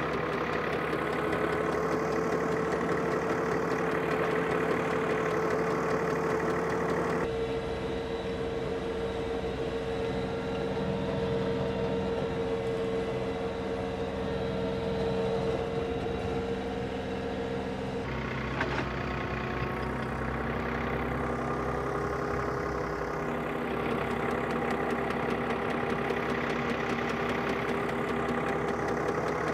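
John Deere compact diesel tractors running steadily at working speed while pulling a box blade and driving a rotary tiller. The engine note holds a steady pitch, and its character shifts abruptly twice, about 7 and 18 seconds in.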